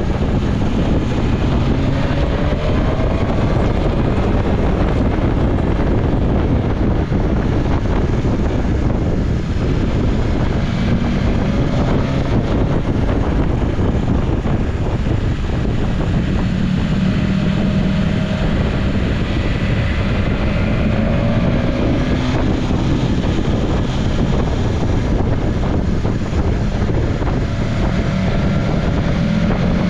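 BMW S1000XR motorcycle's inline-four engine running under way, its note rising and falling several times with the throttle, under steady wind rush on the microphone.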